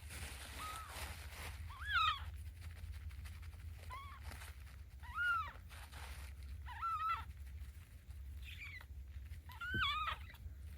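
Seventeen-day-old kitten mewing repeatedly: about seven short, high calls, each rising and then falling in pitch, over a low steady rumble.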